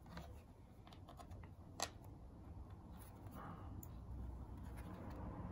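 Light clicks and taps of small guitar parts and the plastic pickguard being handled on a workbench, with one sharper click about two seconds in, over a low steady hum.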